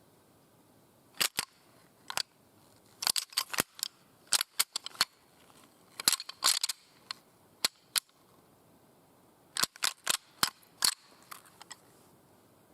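Irregular clusters of sharp crackling clicks, a few at a time, coming roughly every second or two.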